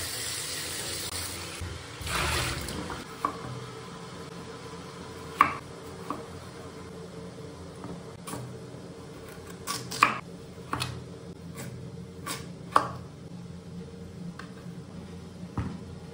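Water running briefly while vegetables are rinsed in a plastic basin, then a kitchen knife chopping garlic and slicing carrot on a wooden cutting board: about a dozen sharp knocks at uneven intervals.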